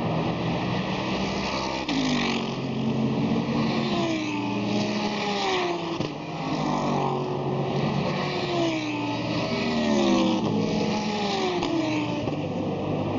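GT race cars passing one after another, engines at high revs, their notes rising and falling as each car goes by and shifts gear, several overlapping at once.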